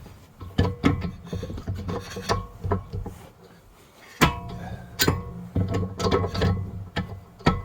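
Irregular clicks and metallic knocks from a ratchet wrench and tools on the front brake assembly as bolts are done up by hand, before final torquing.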